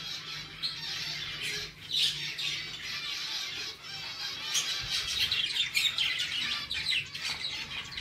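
A flock of caged lovebirds chattering: many overlapping, rapid high chirps and squawks.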